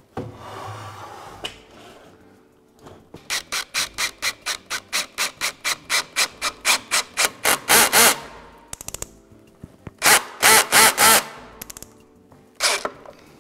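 A wooden table frame scrapes briefly on the floor. Then a Worx 20V cordless drill-driver drives a long wood screw into a pine table leg: a rhythmic run of pulses, about four a second, quickening and getting louder over several seconds. A second short run of pulses follows near the end.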